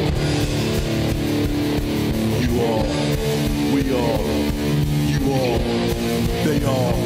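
Rock music: electric guitar over a steady low beat, with repeated short falling pitch glides.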